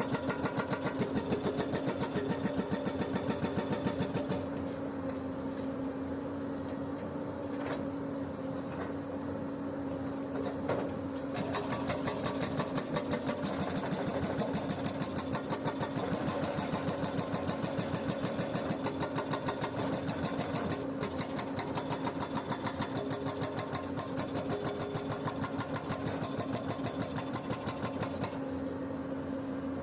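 Excavator-mounted hydraulic breaker hammering in rapid, evenly spaced blows, about four to five a second, over the steady running of the Hyundai R210LC-7 excavator's diesel engine. The hammering stops about 4 s in, the engine runs alone for several seconds, then the hammering resumes at about 11 s and stops again near the end.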